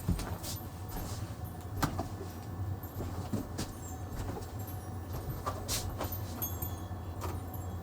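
Handling noise: scattered small clicks and knocks, over a steady low hum.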